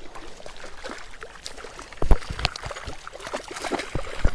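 Running stream water with light splashing as a hooked trout is played and brought in, with scattered clicks and two dull thumps, one about two seconds in (the loudest) and one near the end.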